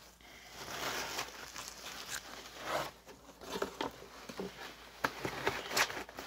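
Packaging being handled: irregular rustling and crinkling, with a few sharp clicks and taps.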